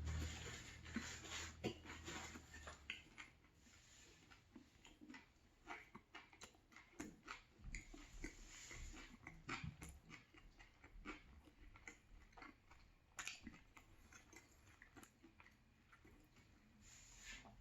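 Close-miked chewing and crunching of a banh mi sandwich on crusty baguette: soft, irregular crackles and mouth sounds, several a second.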